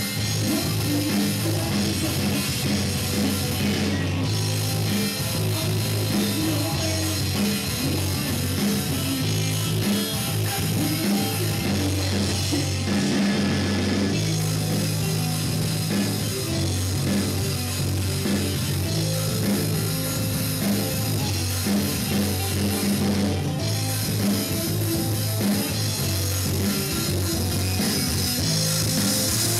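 Live rock band playing a song: guitars and a drum kit, loud and continuous.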